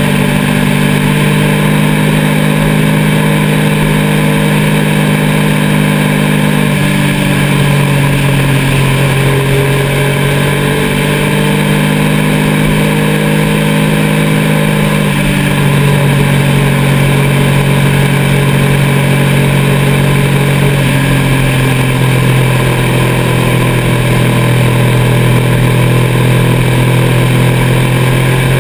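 Motorcycle engine running steadily at road speed, its pitch stepping to a new level a few times as the speed changes, over steady wind and road noise.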